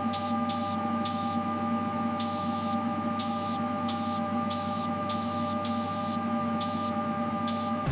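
Spray-painting equipment running: a steady hum of several tones, with a hiss that cuts in and out in short, irregular bursts.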